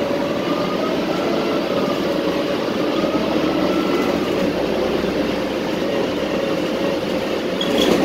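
Cabin noise of a city transit bus under way: a steady engine and drivetrain drone with a whine that drifts slightly in pitch. A short high beep sounds near the end.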